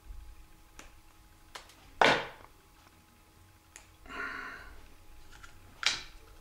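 Handling noise from fingers working thin wire onto a small ball: a few faint clicks, two louder sharp rustles about two seconds in and near the end, and a softer rustle a little after four seconds.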